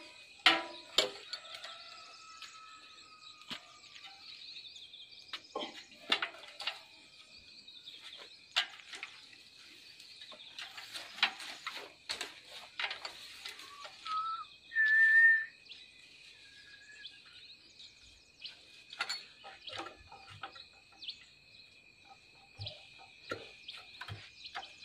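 Scattered metallic clicks and taps from hand work on a small walk-behind tractor's diesel engine, which is not running. Birds chirp in the background, with one loud, short high-pitched chirp about fifteen seconds in.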